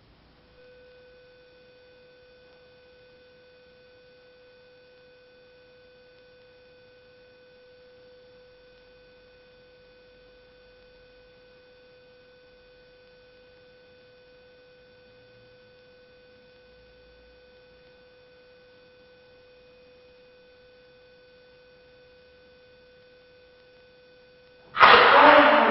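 A faint, steady pitched tone held unchanged for about 24 seconds, cut into near the end by a sudden loud burst that dies away over about a second.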